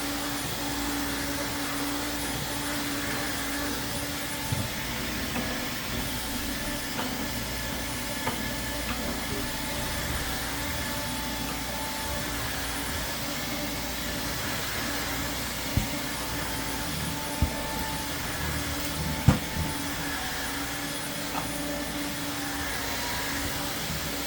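Airthereal Vactide wet-dry vacuum running steadily. A few short knocks sound over the hum, the loudest about two-thirds of the way through.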